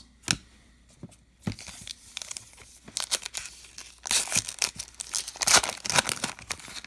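Foil wrapper of a Topps Allen & Ginter baseball card pack being torn open and crinkled by hand. A sharp click comes just after the start, then scattered crackles build into dense tearing and crinkling over the second half.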